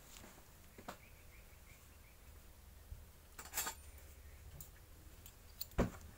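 Quiet room tone broken by a few faint clicks and knocks, loudest near the end. A short run of faint chirps comes about a second in.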